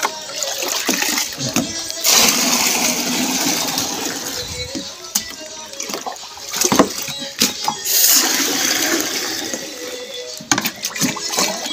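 Water splashing and rushing as a small plastic bucket is dipped into a full plastic water storage tank and scooped out. There are two long gushes, about two seconds in and about eight seconds in, with knocks and clatter of the bucket between them.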